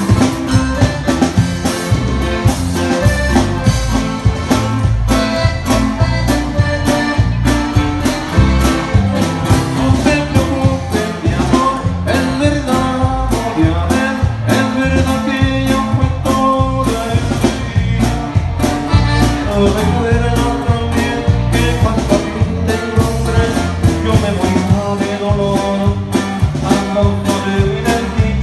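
Live norteño band playing, with guitar, bass and drum kit keeping a steady beat, and some singing.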